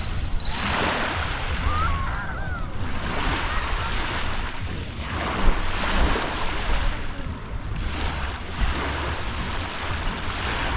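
Small waves washing onto a pebble shore, the hiss swelling and fading every couple of seconds, with wind rumbling on the microphone.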